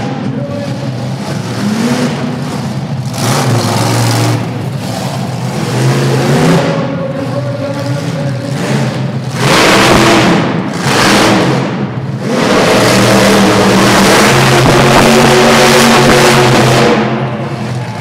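Monster truck's V8 engine revving in a series of throttle surges. It ends in a long, loud full-throttle run from about two-thirds of the way in until shortly before the end.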